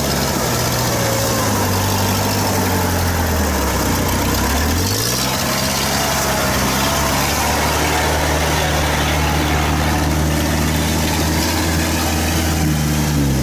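Isuzu 93 diesel engine of a homemade tracked rice tractor running under load. Its speed sags about four seconds in, picks back up a second later, runs steady, and eases off near the end.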